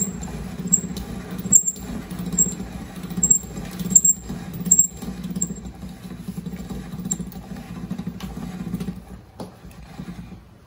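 Pasta machine running dough through its noodle-cutting rollers: a steady hum with a light click about every three-quarters of a second. The clicks stop about halfway through, and the hum fades near the end.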